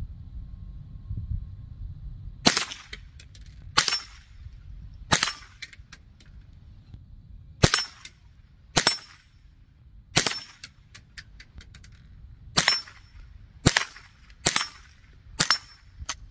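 Scoped .22 LR rifle firing about ten single shots, the first about two and a half seconds in, then one every second or so at an uneven pace.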